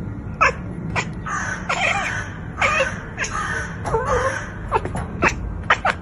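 Domestic cat making a string of short chirps and clipped meows, some bending in pitch, coming quicker and shorter near the end.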